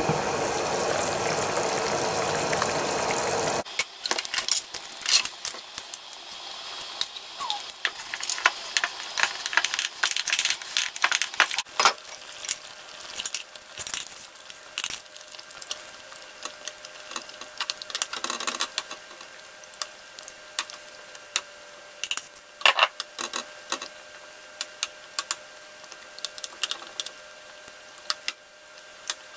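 Chicken in paprika sauce simmering in a lidded frying pan: a steady hiss for the first few seconds, which cuts off suddenly. Then scattered clinks and scrapes of a spoon against a glass bowl and the pan as cream is spooned in and stirred into the sauce.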